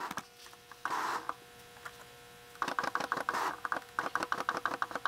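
A rapid, uneven run of small dry clicks and rustles, beginning about halfway through, with a few short soft hisses, over a faint steady hum.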